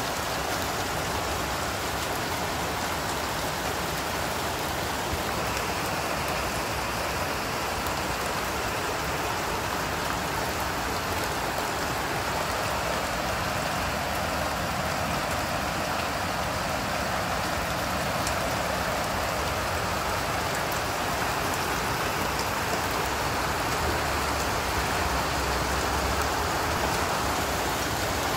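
Heavy rain falling steadily: an even, unbroken hiss of rain on the ground, grass and surfaces.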